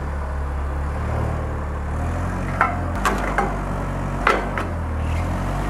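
A propane forklift's engine running with a steady low hum, with a string of sharp knocks and clunks from about halfway in as the forklift shifts on the wooden pallets and steel trailer ramp.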